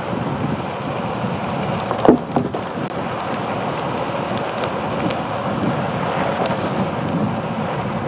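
Onewheel Pint rolling along a paved path: a steady rush of tyre noise and riding wind over the action camera, with scattered small ticks from the surface. About two seconds in come two louder knocks in quick succession.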